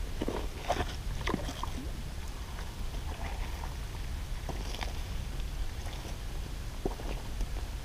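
Steady low wind rumble on the microphone, with scattered light clicks and knocks, several in the first second and a half and a few more later, as an angler lands and handles a smallmouth bass at the rocky water's edge.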